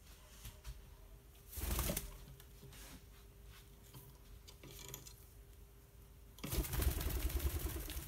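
Rose-ringed parakeet's wings flapping in a fast fluttering run for the last second and a half, the loudest sound here, with a shorter burst of flapping or rustling about two seconds in.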